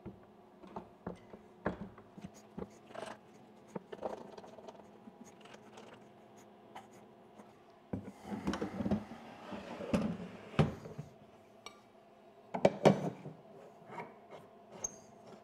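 Handling noises of a wooden jig and a hard plastic case: scattered knocks and clicks, then scraping and rubbing of plastic against wood as the case is lowered into the jig. The scraping is loudest about halfway through and again near the end.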